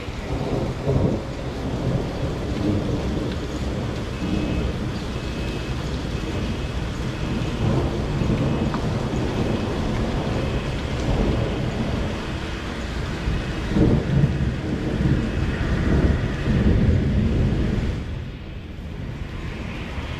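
Thunder rumbling over steady rain, the rolls swelling about a second in, in the middle and again from about two-thirds through, then easing off near the end.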